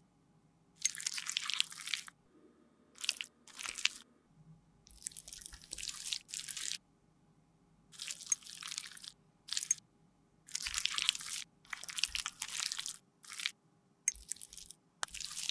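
Close-up sticky scraping and squishing of thick cream makeup worked with a metal spatula and tweezers against a metal tin and a glass beaker. It comes in a string of short bursts, each up to about two seconds, with brief pauses between.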